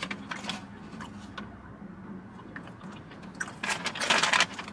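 Paper bag and food wrappers rustling and crinkling as someone rummages through a fast-food bag, with scattered clicks and a louder burst of crinkling near the end. A faint low hum runs underneath.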